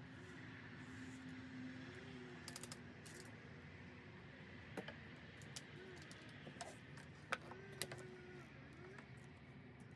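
Quiet outdoor background with a handful of faint, sharp clicks and taps, and faint distant voices.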